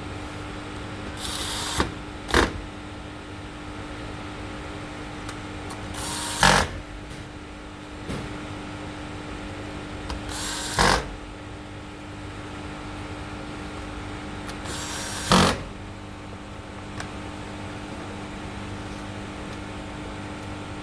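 Electric screwdriver driving the heat-sink screws into a graphics card board: four short runs a few seconds apart, each ending in a sharp click, over a steady background hum.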